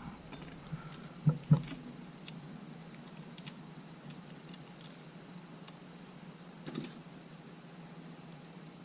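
Small clicks and light taps from handling camera parts and tools, with two sharper knocks about a second and a half in and a brief clatter of clicks later on. A faint steady hum sits underneath.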